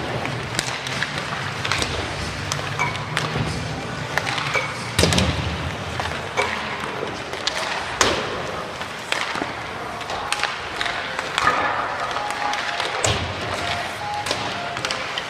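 Ice hockey shooting warm-up: pucks struck by sticks and smacking into goalie pads, the net and the boards, a sharp crack every second or so over steady arena noise.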